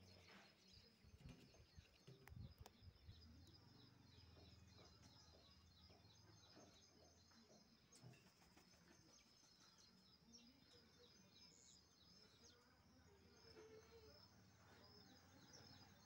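Near silence: faint outdoor ambience with a steady high buzz and faint, scattered distant bird chirps.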